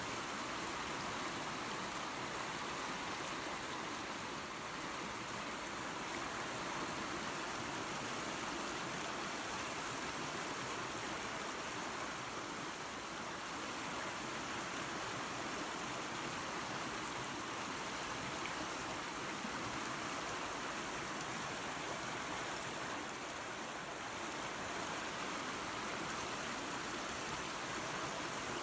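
Small waterfall pouring into a creek: a steady, even rush of running water.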